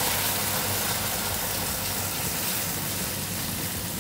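Coconut milk poured in a stream into a hot non-stick pan of fried onion and korma curry paste, sizzling and splashing as it spreads under a spatula. The noise is steady and slowly fades.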